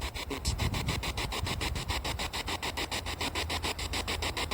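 Spirit box sweeping through radio stations: choppy radio static that cuts in and out in rapid, even pulses, about ten a second.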